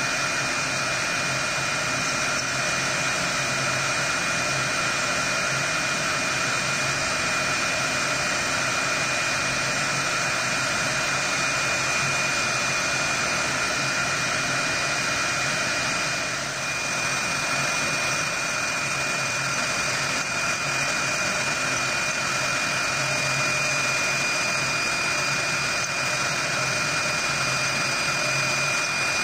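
Avid CNC router's spindle running with a steady high whine while a tapered carving bit cuts a pocket into a wood block. The sound dips briefly about halfway through.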